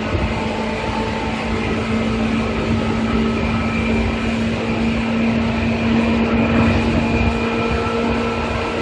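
Seibu 2000 series electric train running at a steady speed: a continuous rumble of wheels on rail with a steady hum from the traction motors and gears, holding one pitch.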